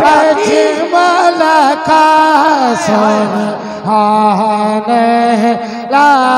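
A man singing a Punjabi naat into a microphone over a loudspeaker system, in long wavering melismatic notes that rise and fall with no clear words.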